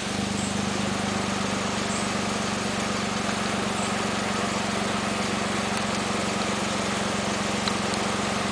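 A car's engine idling, heard from inside the cabin: a steady low hum with an even hiss over it.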